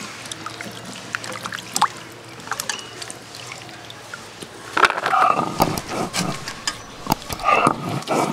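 Water sloshing and splashing in a steel bowl as hands rub cut potato chunks clean, with small wet knocks of the pieces. About five seconds in, louder calls come in behind it.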